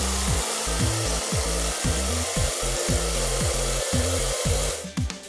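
Steady hiss of water spraying from an overhead car-wash nozzle bar, a cartoon sound effect, over background music with a stepping bass line. The hiss cuts off suddenly near the end.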